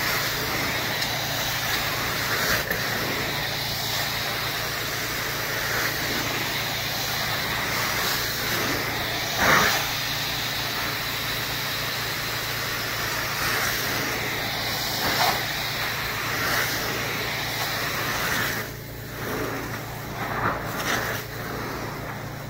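Carpet-cleaning extraction wand drawn across carpet, its vacuum hose sucking with a steady rushing roar over a constant hum. A few brief louder swishes come between strokes, and the sound dips and wavers near the end.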